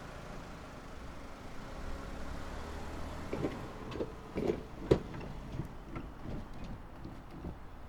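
Road vehicle running up and over the level crossing: a steady low rumble, then a run of irregular knocks as its tyres cross the rails, the loudest about five seconds in.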